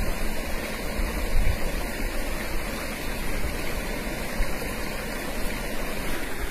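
Steady rushing noise of flowing river water, with an uneven low rumble underneath.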